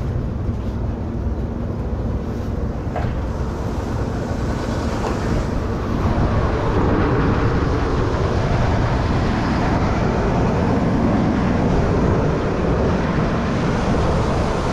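Farm machinery engine running steadily through the harvest, getting a little louder about six seconds in.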